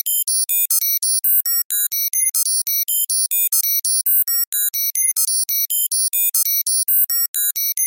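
Computer data-processing sound effect: a rapid stream of short, high-pitched electronic bleeps jumping randomly from pitch to pitch, about five a second.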